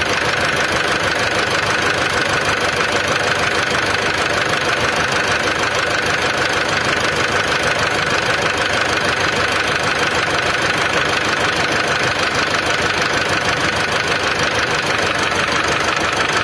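Mitsubishi Triton common-rail diesel engine idling rough, with a metallic knock. The mechanic suspects that a faulty injector or a problem in the combustion chamber causes the knock, the same fault behind the white smoke and lack of power.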